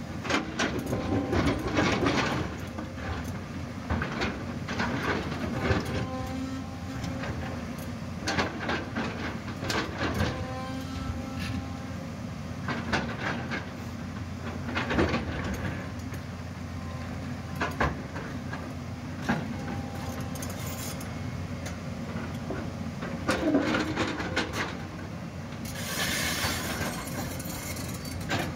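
JCB crawler excavator's diesel engine running steadily under load while its bucket digs into a loose shale rock face, with repeated knocks and clatter of rock and stone tumbling down. A rushing hiss rises briefly near the end.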